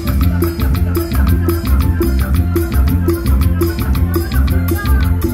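Live amplified band music: a steady Latin dance beat on drum kit with strong bass and a repeating melodic figure, heard from the stage next to the drums.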